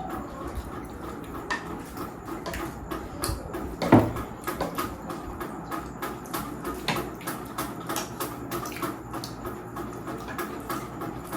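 Eating instant noodles, with many small clicks of utensils against the bowl and one louder knock about four seconds in.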